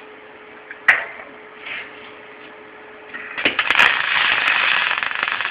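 A sharp click about a second in. Then, a little past three seconds, an aluminum MIG weld bead is run with a spool gun on a Thermal Arc Fabricator 181: the arc strikes and keeps up a loud, steady crackling hiss.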